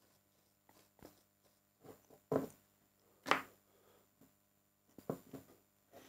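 Scattered light scrapes and clicks of soldering work: the soldering iron's tip wiped in a brass wool cleaner and the iron and XLR connector handled. The two loudest scrapes come about a second apart, a little past two and three seconds in.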